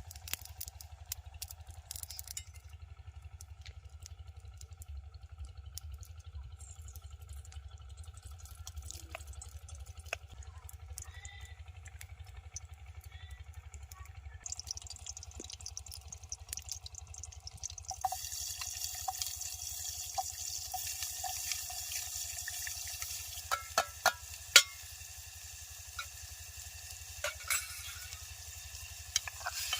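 Food frying in a pan: a sizzling hiss starts a little past halfway, with a few sharp clinks of a utensil stirring against the pan. A steady low rumble runs underneath.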